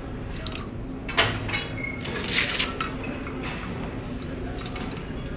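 Metal clinks and clicks of a carabiner and strap attachment being handled and clipped at a gym cable machine's low pulley, the sharpest click about a second in, with a short rasping noise just after two seconds.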